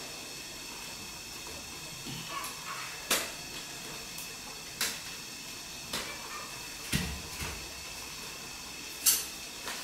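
Aluminium crutches tapping on a concrete floor and knocking against a round pan on the floor: about five sharp, separate knocks a second or so apart, one with a dull thump about seven seconds in, over a faint steady hiss.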